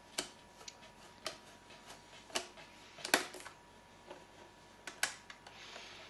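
Screwdriver turning the captive screws of an iMac's memory access plate: a series of small, irregular clicks, the loudest about three seconds in.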